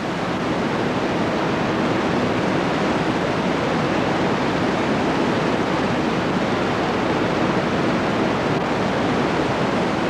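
Loud, steady static hiss spread evenly from deep to high pitches, with no voices or distinct events in it: the noise of an old home-movie sound track. It rises in over the first half second after a sudden dropout.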